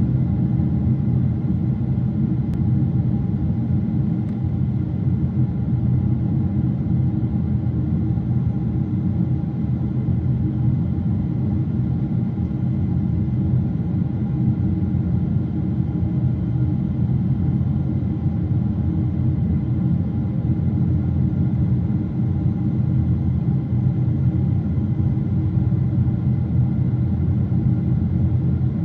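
Steady cabin roar of a Boeing 777 in cruise, heard from inside at a window seat beside the wing engine: a deep, even rumble of engine and airflow with a faint steady hum above it.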